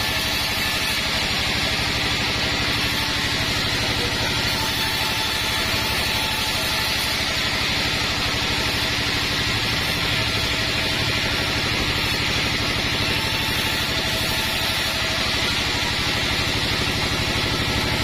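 Band sawmill machinery running steadily: a constant mechanical drone that holds an even level, with no change in load.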